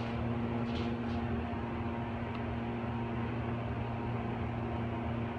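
Steady hum inside a ThyssenKrupp hydraulic elevator cab as the car travels down, with a low drone and a faint held tone throughout.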